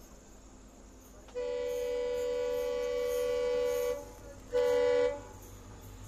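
Horn of an approaching WDP4D diesel locomotive: one long blast of about two and a half seconds, then a short blast of the same single tone about half a second later.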